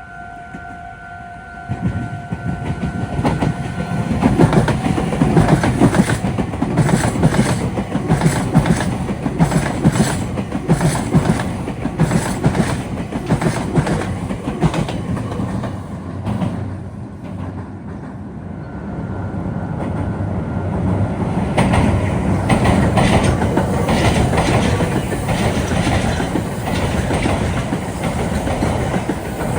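Meitetsu electric trains passing through the Biwajima junction, their wheels clattering rhythmically over the rail joints and points. A steady tone sounds at first and stops about four seconds in. The train noise eases briefly a little past halfway, then builds again.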